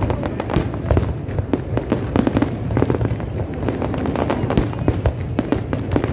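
Fireworks display: aerial shells bursting in quick succession, a dense run of sharp cracks and booms, several a second, over a steady low rumble.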